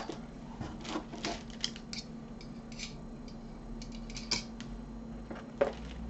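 Crinkling and light clicking of a diamond-painting canvas and its stiff protective release paper being handled, in scattered short bursts, with a sharper tap about five and a half seconds in. A faint steady hum runs underneath.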